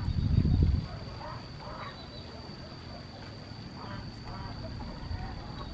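Wind rumbling on the microphone for the first second, then faint, scattered duck quacks over a steady high whine.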